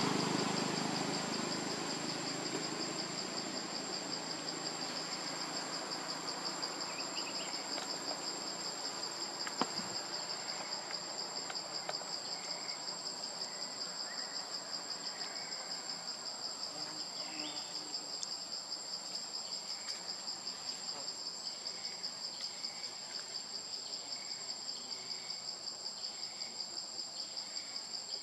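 Steady high-pitched insect chorus, a fast even pulsing trill. Faint short chirps repeat in the second half, and there is one soft click about ten seconds in.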